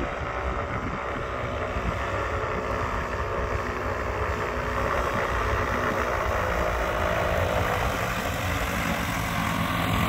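Parajet Zenith paramotor's engine and propeller running as it comes in to land, steadily growing louder as it approaches, with wind rumbling on the microphone.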